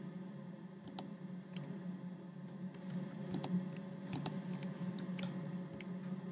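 Computer keyboard keys and mouse buttons clicking irregularly as values are typed into form fields and a button is clicked, over a faint steady low hum.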